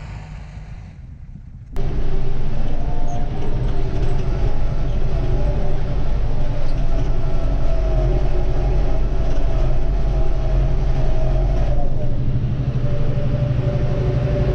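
Truck engine running steadily while driving, a deep hum with a higher whine over it. The sound jumps abruptly louder about two seconds in.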